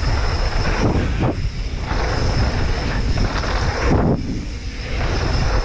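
Wind buffeting a camera's microphone while a mountain bike rolls down a dirt trail, with tyre rumble and brief knocks and rattles from the bike over the bumps.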